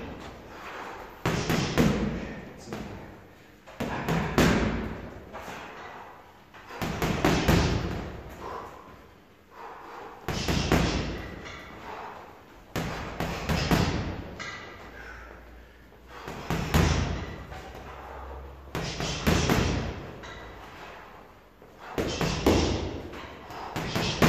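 Boxing gloves striking a heavy punching bag in repeated short combinations, each a quick flurry of three or four blows, with a pause of a second or two between flurries.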